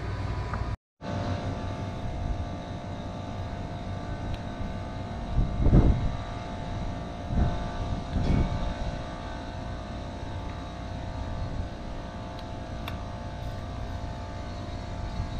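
A steady machine drone with a held hum, joined by a few short low buffets on the microphone about six and eight seconds in.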